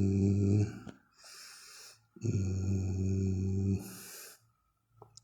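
A man's reciting voice holds a low, steady nasal note with unchanging pitch, twice, each about a second and a half long, with a short breath after each.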